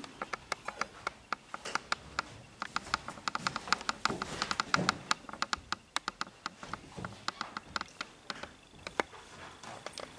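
A run of quick, irregular light clicks and taps, several a second, thickest about four to five seconds in.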